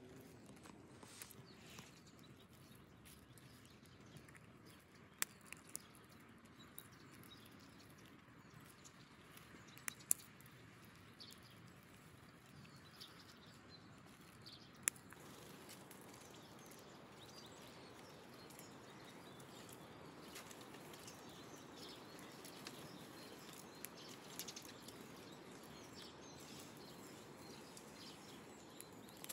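Faint rustling and a few sharp clicks as a red squirrel rummages for nuts in a cloth sack.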